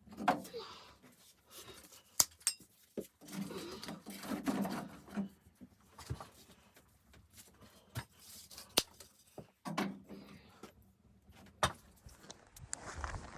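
Irregular rustling and handling noise with a few sharp clicks and knocks.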